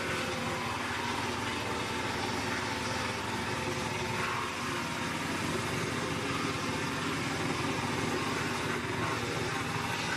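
Engine of a small mobile wood chipper running steadily.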